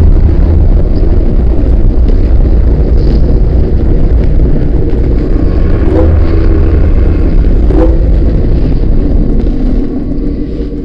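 Loud, dense low rumble with a noisy hiss above it, the dramatic sound bed of a TV spot, with a short faint tone about six and again about eight seconds in; it fades out near the end.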